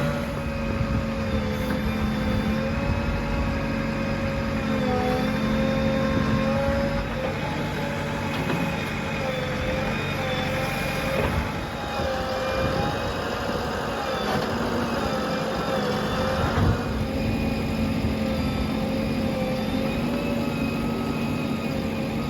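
Heavy diesel engine running steadily, its pitch dipping and recovering a few times under changing load.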